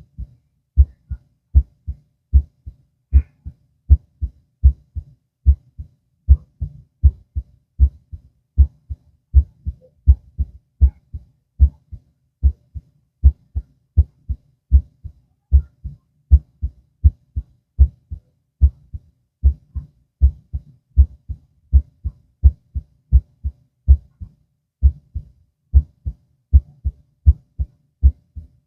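A human heart heard through a stethoscope on the chest, beating steadily at a little more than one beat a second. Each beat is a low double thud, the lub-dub of the first and second heart sounds.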